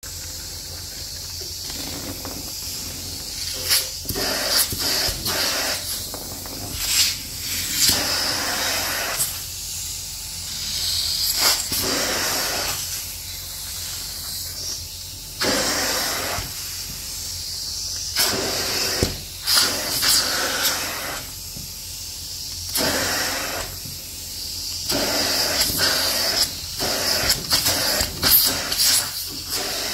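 Upholstery extraction tool's suction hissing steadily as it is drawn over sofa fabric, with louder rushing stretches of a few seconds each as the tool makes its passes, and scattered short clicks.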